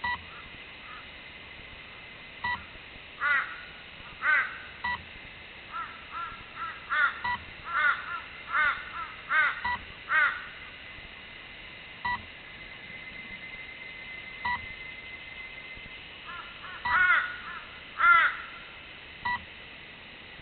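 A bird calling in runs of short, loud, repeated calls. Under them a short high electronic beep repeats about every two and a half seconds.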